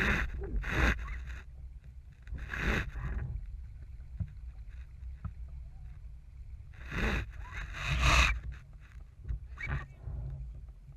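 Water slapping and splashing against the hull of an RS Feva sailing dinghy in about six short bursts, over a steady low rumble.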